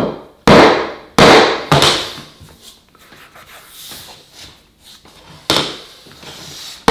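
Soft-faced mallet tapping a vinyl plank to lock a short end joint into place: three sharp taps in the first two seconds, another about five and a half seconds in and one more at the very end, with quieter shuffling of the plank between them.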